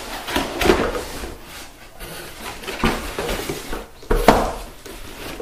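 Corrugated cardboard box flaps being opened and folded back by hand: cardboard scraping and rustling, with a few dull knocks, the loudest about four seconds in.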